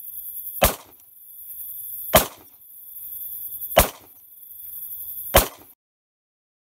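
Outro sound effects: four sharp hits about a second and a half apart, each led by a swelling hiss, over a steady high tone. They stop abruptly near the end.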